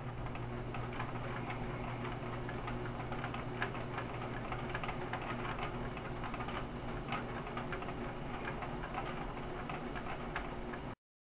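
Irregular light ticks and clicks over a steady low hum, cutting off suddenly near the end.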